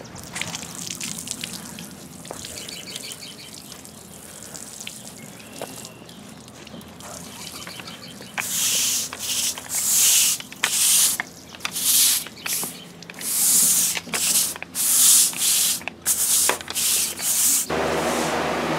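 Water sprayed from a sprayer wand onto freshly colour-washed stamped concrete in a quick run of short hissing bursts, wetting the surface to spread the pigment evenly. Near the end the bursts stop and a steady low hum takes over.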